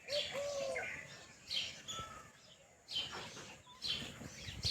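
Small pet parrots kept as lovebirds chirping: sharp high calls about once a second, with a few short whistled glides near the start.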